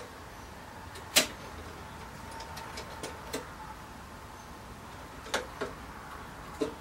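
A handful of sharp, irregular clicks and light knocks over a steady hiss, the loudest about a second in: small parts being handled while the scroll saw blade is fed through a hole in the quarter and reconnected, with the saw not running.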